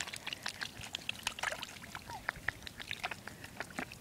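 Ducks dabbling and preening in a small plastic pool of water: scattered light splashes, drips and quick bill clicks.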